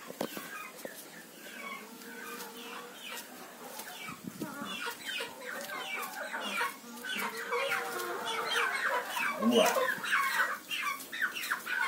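Chickens clucking, the calls getting louder and more frequent through the second half.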